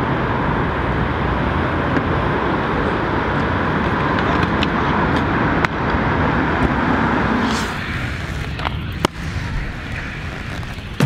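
Steady city traffic noise. About eight seconds in it gives way to inline skate wheels rolling over pavement, with a few sharp clacks.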